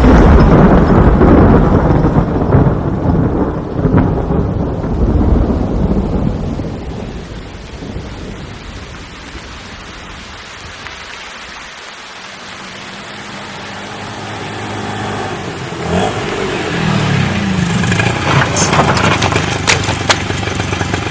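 A vehicle running with a heavy rumble that dies down to a quieter stretch, then builds again with a rising whine and a few sharp clicks. The pattern fits a train slowing, standing and pulling away.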